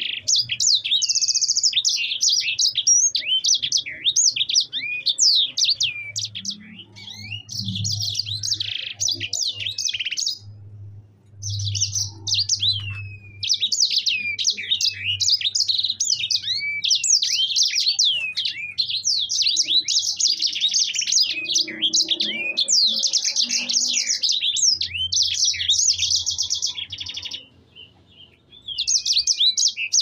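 Caged sanger songbird singing a long, fast rolling song of high chirps and trills, breaking off briefly about ten seconds in and again near the end.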